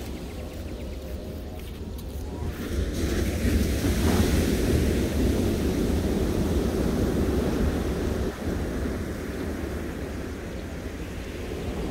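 Surf breaking on a sandy beach, swelling about three or four seconds in and easing toward the end, with wind rumbling on the microphone.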